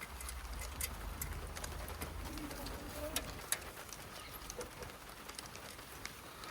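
A bird cooing faintly a few times, with scattered light clicks and taps.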